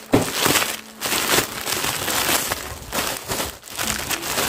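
Clear plastic wrapping crinkling as it is pulled apart and unwrapped by hand, in a run of uneven rustles and crackles.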